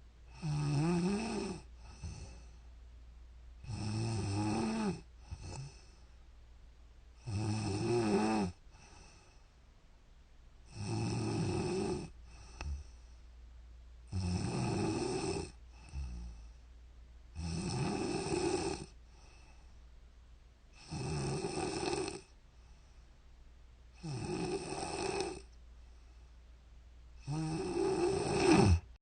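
A woman snoring in her sleep, in a steady rhythm of nine snores about every three and a half seconds, each loud rattling inhale followed by a short, softer breath.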